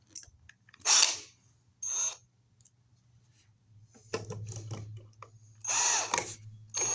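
Power drill driving a mounting screw into the top of an outlet box, running in several short bursts with the motor's whine speeding up and slowing down.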